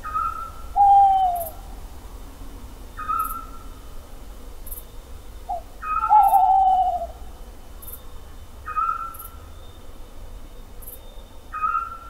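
Owl calls: two loud, falling hoots, one about a second in and a longer quavering one about six seconds in, over a shorter, higher call repeating about every three seconds.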